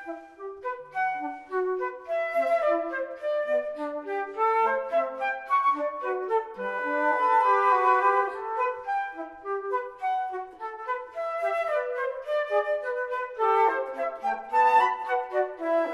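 Flute quartet of piccolo, flute, alto flute and bass flute playing together in parts: quick short notes in the upper voices over moving lower lines from the bass flute.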